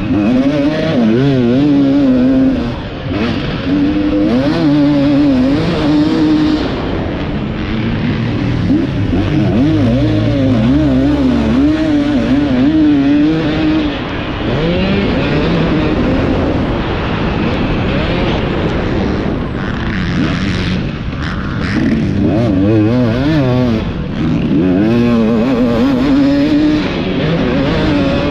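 A 450cc four-stroke motocross bike engine at race pace, heard from on board. Its pitch rises and falls over and over as the throttle is opened and chopped, with short drops off the throttle about 3 and 14 seconds in.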